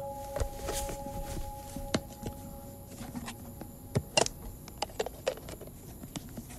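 Cloth being handled and rustled, with scattered light taps and knocks, the sharpest about two and four seconds in. A steady high tone under it fades out about three seconds in.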